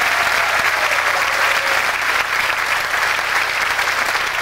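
Audience applauding, dense steady clapping.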